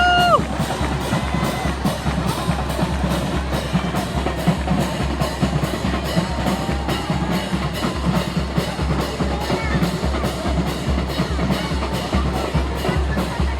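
A band playing, carried by drums that keep a steady, even bass-drum beat. A short held high note that drops off sounds at the very start.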